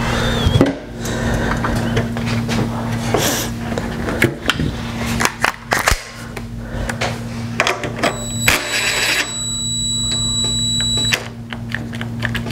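Clicks, taps and knocks of hand tools on plastic headlight-housing parts and fasteners being worked, over a steady low hum. About eight seconds in, a thin high whine holds for about three seconds and cuts off suddenly.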